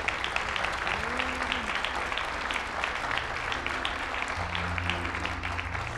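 Audience applauding, a dense steady clatter of many hands clapping. About three seconds in, low sustained music notes begin under it and grow stronger.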